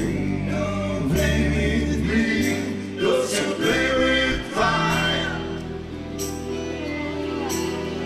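Live band music from electric guitar, bass, drums and keyboards, with singing over it and cymbal strikes every second or so.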